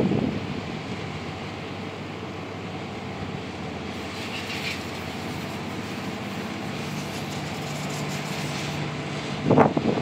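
A small fishing boat's engine running steadily as it passes close by at speed, a low hum that grows clearer in the second half. Wind buffets the microphone briefly at the start and again, loudest, near the end.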